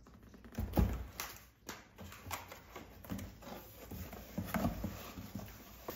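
Cardboard shipping box set down on a desk with a thump about a second in, then its flaps handled and pulled open, with scattered knocks and rustling of cardboard.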